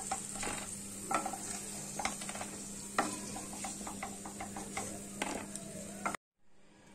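Hot oil sizzling in a non-stick kadai while a wooden spatula scrapes the pan and lifts fried cashews and raisins out, with occasional light taps of wood on the pan. The sound cuts off abruptly near the end.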